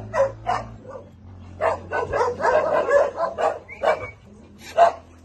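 Dog barking: a run of short, separate barks, bunched in the middle, with the loudest single bark near the end.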